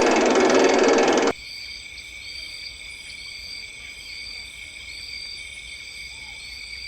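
A loud rushing noise that cuts off abruptly about a second in, followed by a steady chorus of insects: several high shrill tones with a short chirp repeating a little more than once a second.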